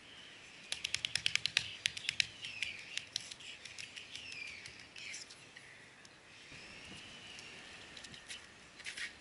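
Birds chirping and singing in thin, downward-gliding whistled notes. About a second in there is a quick run of sharp clicks, and a few more come near the end.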